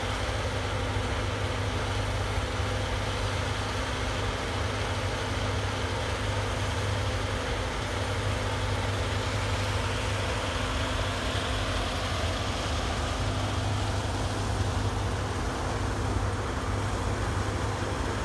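Farm machinery engine running steadily: a continuous, even drone with a low hum and a few fixed tones.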